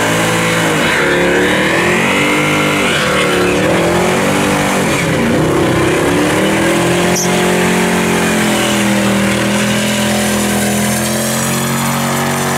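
Mercedes-Benz car engine revving hard during a smoky burnout, its pitch wavering up and down, while the spinning rear tyres give a continuous hiss. About halfway through, the revs settle into a steadier high pitch that slowly climbs.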